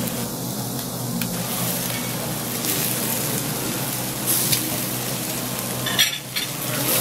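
Meat sizzling on a hot cooking stone (pierrade), a steady frying hiss, with a couple of brief clicks about four and six seconds in.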